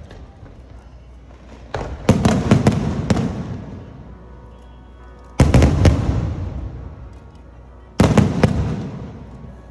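Aerial fireworks shells bursting overhead: three loud bursts about two, five and a half and eight seconds in. Each is a cluster of sharp bangs followed by a rumble that fades over two or three seconds.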